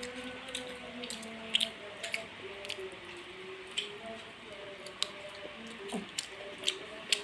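Close-up wet mouth noises of someone eating: scattered smacks and squelches of chewing, about half a dozen sharp ones, over faint background music.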